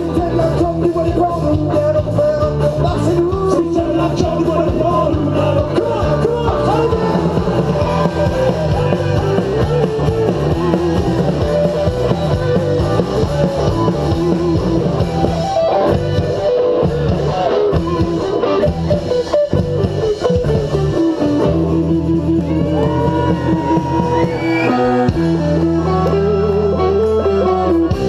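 Live band playing a folk-rock song, with accordion, electric guitar and sung vocals over bass. About two-thirds of the way through, the bass changes to longer held notes.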